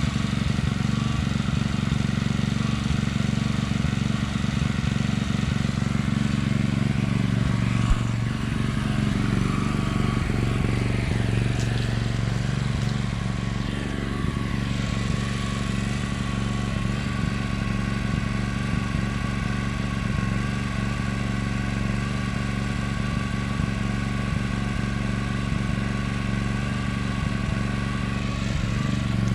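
WEN GN400i inverter generator engine running steadily in eco mode with no load on it. A brief click about eight seconds in.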